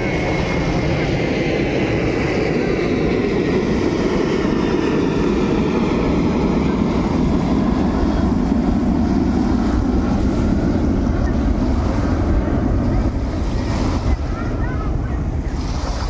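Small waves breaking and washing up over a pebble beach in a steady wash, with wind rumbling on the microphone.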